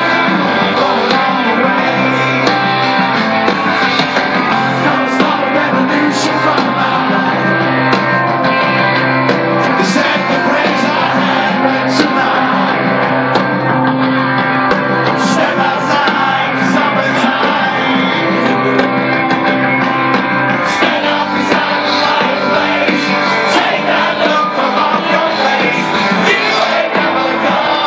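Live rock band playing, with a singing voice over guitars.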